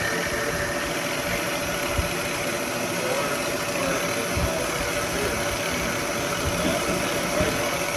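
Old vertical milling machine running steadily with a steady whine, its burr cutter feeding into a wheel-stud hole in an axle flange and machining out the old threads.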